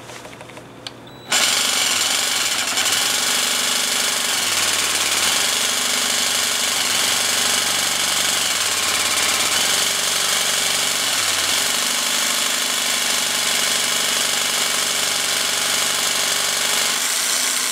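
Cordless jigsaw starting about a second in and running hard, its blade cutting through ceramic tile; the motor's pitch dips and comes back several times, and it stops near the end.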